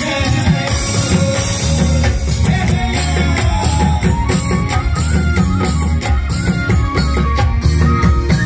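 Amplified folk-style band music: a steady drum beat over heavy bass, with a held melody line stepping from note to note.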